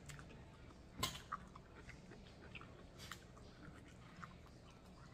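Faint mouth sounds of a person chewing fruit, with a few small wet clicks; the loudest comes about a second in.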